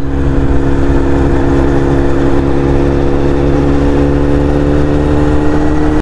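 TVS Apache RR310's single-cylinder engine running at a steady cruising speed, with wind noise on the microphone.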